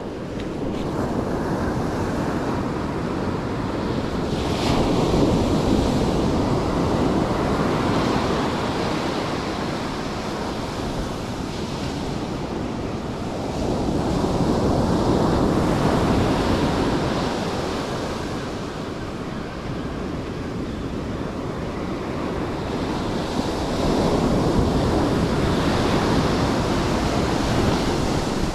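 Ocean surf breaking and washing up a sandy beach, swelling louder three times about ten seconds apart, with wind buffeting the microphone.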